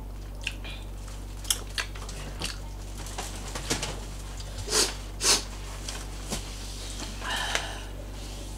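Close-miked eating sounds: scattered wet mouth clicks and chewing, with two sharp sniffs through a runny nose about halfway through, over a low steady hum.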